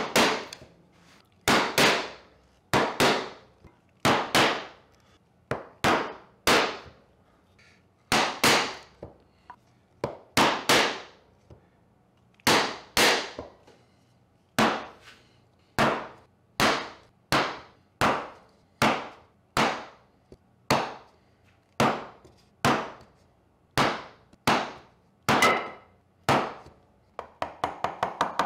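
Carving gouges held upright on the lines of a carved pattern, struck sharply from above to set in the design in the wood. The blows come singly or in quick pairs, about one to two a second, each ringing briefly. Near the end comes a fast, even run of lighter taps.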